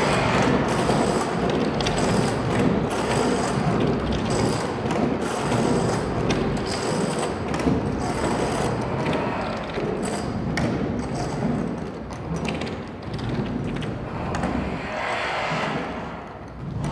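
Kinetic sculpture's paper wall sliding back and forth on a lever arm, stroking, banging and now and then plucking amplified strings, heard through loudspeakers: a dense, continuous scraping wash with frequent knocks and clicks and faint ringing string tones.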